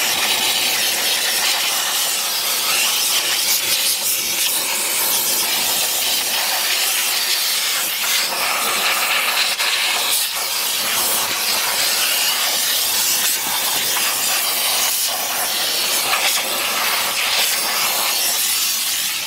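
VX5000 steam cleaner's nozzle jetting steam into a car door jamb: a continuous high hiss with small surges as the nozzle is worked up and down, agitating degreaser on the jamb.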